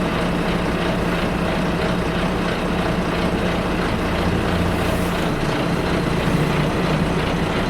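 Inside a double-decker bus, the engine idling: a steady, even low drone with interior cabin noise.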